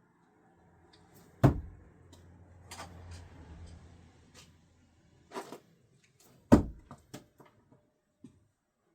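Screwdrivers thrown no-spin thudding into the target, two loud strikes about five seconds apart, with lighter knocks and clicks between them.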